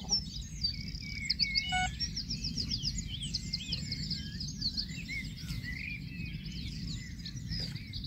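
Dawn chorus: several songbirds singing at once in a dense run of quick chirps and trills, over a low steady rumble.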